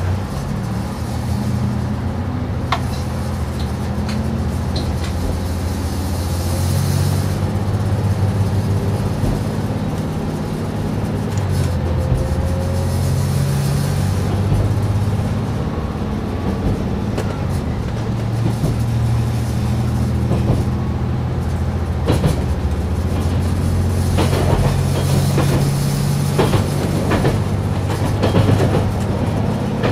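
KiHa 187 diesel railcar's engines pulling the train away and accelerating, a steady drone whose pitch shifts up and down in steps, heard from inside the front of the train. From about two-thirds of the way in, the wheels click repeatedly over rail joints and points.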